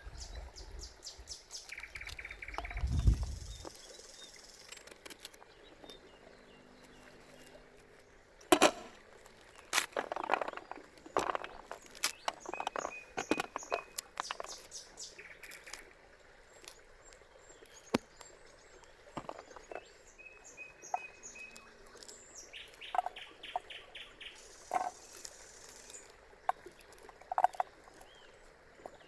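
Small birds chirping and trilling, with scattered sharp knocks and clicks, the loudest about eight and a half seconds in. A low rumble runs through the first few seconds.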